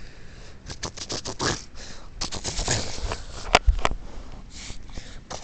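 Puppy sniffing and snuffling in short irregular bursts close to the microphone, with two sharp clicks about three and a half seconds in.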